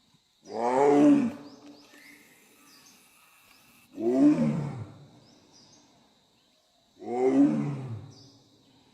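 Bengal tiger roaring three times, about three seconds apart. Each roar lasts about a second and falls in pitch as it fades.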